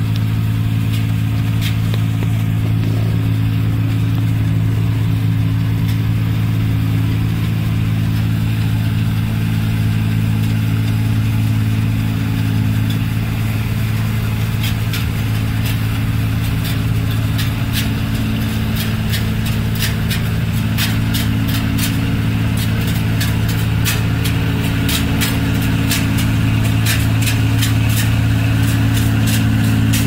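New Holland Clayson 8060 combine harvester's diesel engine running steadily under load while it cuts rice. From about halfway through, a rattle of sharp irregular clicks joins in.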